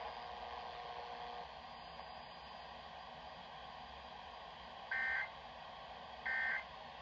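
Two short, identical digital data bursts about 1.4 s apart, starting about five seconds in, over a steady broadcast hiss: the Emergency Alert System end-of-message (SAME 'NNNN') tones that close a tornado warning.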